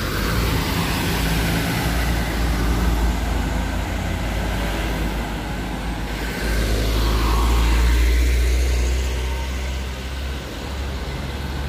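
Heavy road traffic passing close by: an intercity coach's diesel engine rumbling past at the start, then trucks going by, loudest about seven to nine seconds in.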